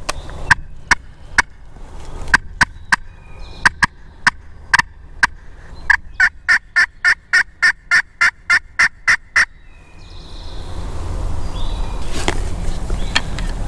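Turkey pot call played with a wooden striker: scattered sharp clucks, then a fast even run of about fourteen yelps, some four a second. A low rushing noise, wind or movement on the microphone, builds over the last few seconds.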